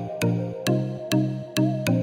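Electronic background music with a steady beat of about two beats a second.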